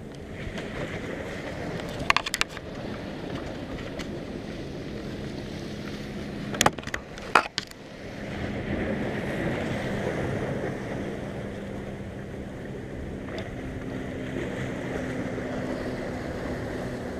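Wind and surf noise along the shore, with a faint steady low hum under it. A few sharp clicks come around two seconds in, and a louder cluster of knocks near the middle.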